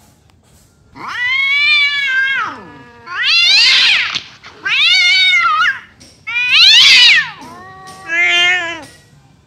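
Cat meowing loudly: five long, drawn-out yowling calls about half a second apart, each rising then falling in pitch, the first the longest.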